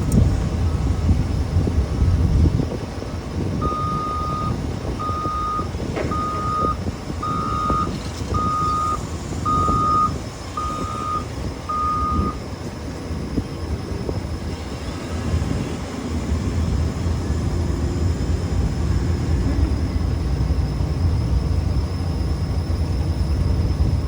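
Reversing alarm beeping about eight times at a steady pace, then stopping, over a steady low rumble.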